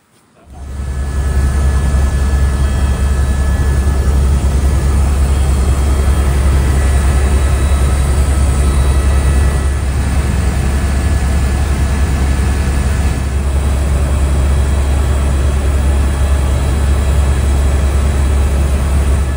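Helicopter in flight: a loud, steady low drone of engine and rotor with thin high whining tones, starting abruptly about half a second in.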